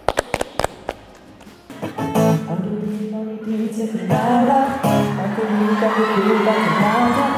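A short run of hand claps from two people, then about two seconds in an acoustic guitar is strummed while a man sings along into a microphone.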